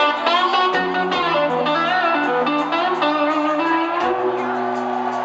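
Live electric guitar playing a solo of bent, sliding notes over long-held low notes, amplified through an arena PA.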